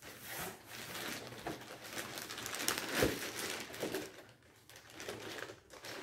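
Clear plastic packaging bag crinkling and rustling as a boxed item is handled and lifted out of a cardboard shipping box, with a single knock about halfway through.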